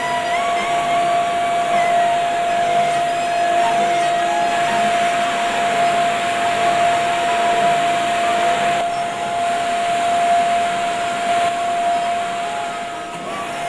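Electric chain hoist motor running steadily with an even whine as it lifts a heavy load.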